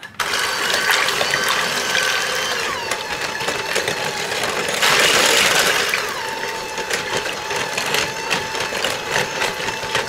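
Electric hand mixer running, its beaters whirring through a thin liquid batter of sugar, milk, melted butter and egg in a glass bowl. The motor's whine drops in pitch twice, about three and six seconds in, and it is louder for about a second in the middle.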